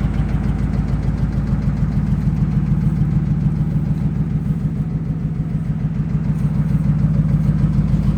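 2005 Dodge Ram's 5.7-litre Hemi V8 running steadily at idle, with a rapid, even knock in its running that the owner takes for rod knock.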